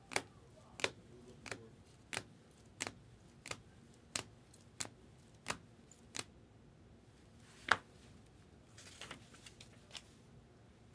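Stack of baseball cards in rigid clear plastic holders flipped through one at a time, the holders clicking against each other about ten times at an even pace of roughly two-thirds of a second apart. Near the end comes one louder clack, then a brief rustle of plastic as the stack is handled.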